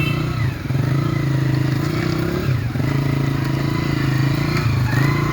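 Diesel locomotive engine running with a steady, low, pulsing throb.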